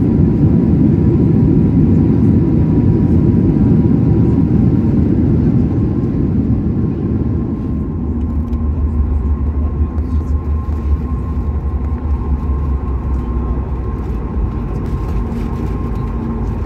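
Cabin noise of a Boeing 737 MAX 8 on its landing rollout: a loud rumble from the CFM LEAP-1B engines and the wheels on the wet runway. About six seconds in it eases into a lower, steadier hum with a faint whine as the jet slows.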